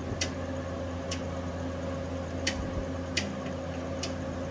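A switch on the Swaraj 855 tractor's added lights clicking six times at uneven intervals, about once a second, as the light modes are changed, over a steady low hum.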